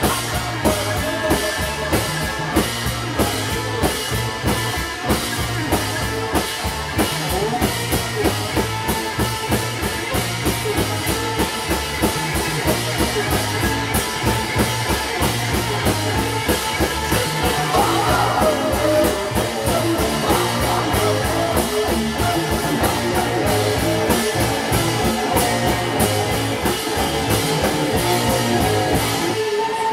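Live rock band playing loud, with distorted electric guitars over a drum kit pounding a fast steady beat. The band cuts off abruptly just before the end, leaving a single held tone.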